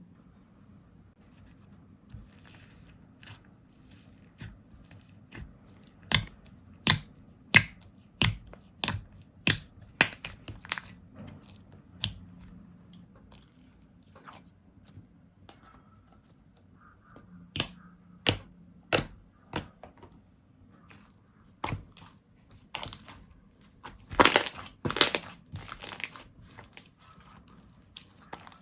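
Slime being pressed and poked by hand, making sharp popping clicks, about one and a half a second in two runs, then a louder crackly squish near the end.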